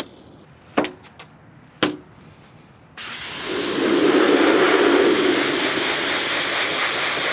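A few short, sharp clicks, then about three seconds in a pressure washer's spray starts suddenly: a loud, steady hiss of water blasting against the truck's door panel where the side molding's adhesive residue was left behind.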